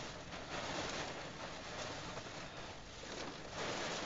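Rain falling on a car's windshield and roof, heard from inside the car: a steady hiss that swells and eases.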